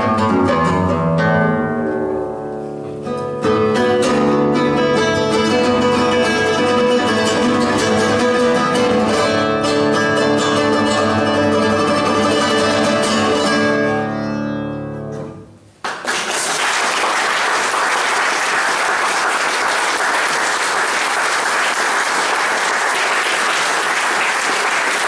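Classical guitar playing quick, ringing passages of many notes, fading out about fifteen seconds in; then the audience applauds steadily.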